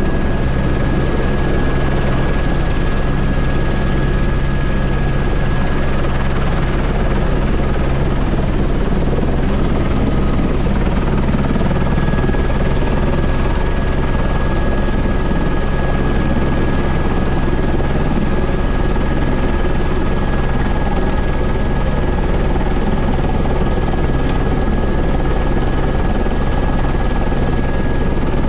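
Airbus H125 (AS350 B3) helicopter running steadily, heard from inside the cockpit: a deep rotor and engine hum with a steady high turbine whine over it.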